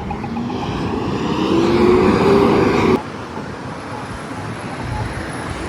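Road traffic: a vehicle accelerating past with a rising engine note, loudest around two seconds in and cut off abruptly about three seconds in, then quieter steady traffic noise. A crosswalk push-button's rapid ticking fades out in the first half second.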